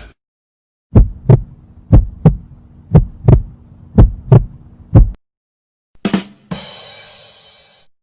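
Heartbeat sound effect: about five double thumps, roughly one a second, over a low steady hum. About six seconds in it gives way to another effect, a short sound and then a noisy ringing that fades away.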